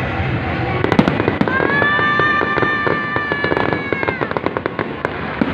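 Aerial fireworks bursting in a rapid run of crackling pops and bangs. Through the middle, a steady high tone with overtones holds for about two and a half seconds and then dips away.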